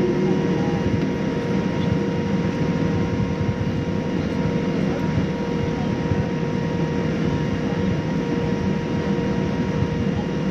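Steady cabin noise inside a Boeing 787-9 airliner: a low, even rumble of engine and airflow with a few constant faint hums, holding steady without rising or falling.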